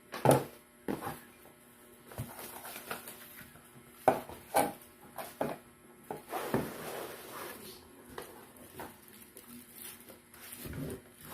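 Packaging and a paper manual being handled during unboxing: scattered clicks and knocks, with a longer rustle about six seconds in.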